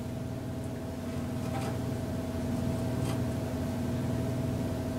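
Steady mechanical hum with a faint constant tone, and two faint clicks, about one and a half and three seconds in, as pliers and a knife handle a small lump of lithium metal.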